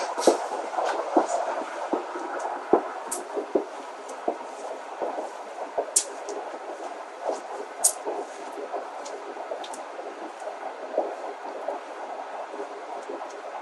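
Footsteps on a concrete walkway, a string of irregular short taps, over a steady background noise.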